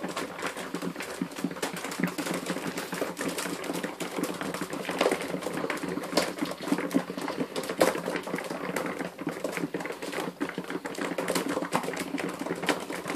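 A flock of pigeons pecking seed off a floor: a dense, irregular patter of quick beak taps.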